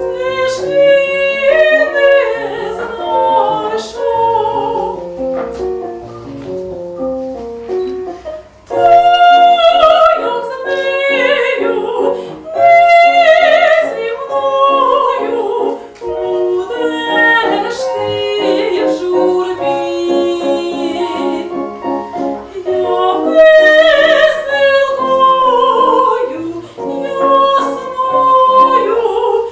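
Classical, operatic-style singing with piano accompaniment.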